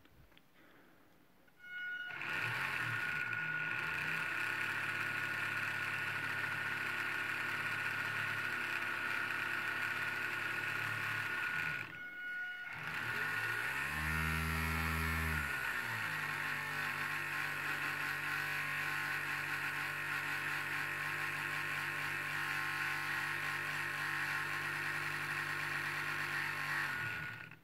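Small fischertechnik electric motor spinning a plastic propeller, running with a steady whine over a low hum. About twelve seconds in it briefly drops out, then its pitch rises and falls before settling, and it stops near the end.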